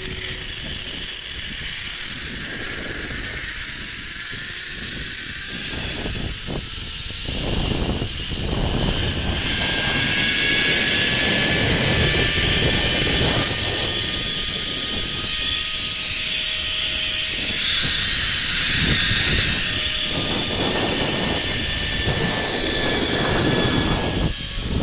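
Zipline trolley pulleys running along the cable with a high whine that slowly rises in pitch as the rider picks up speed, under a steady rushing hiss and low wind buffeting on the microphone.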